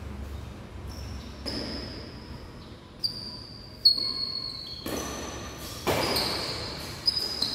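Badminton rally: several sharp racket hits on the shuttlecock, the loudest about three, four and seven seconds in, mixed with high squeaks of court shoes on the floor.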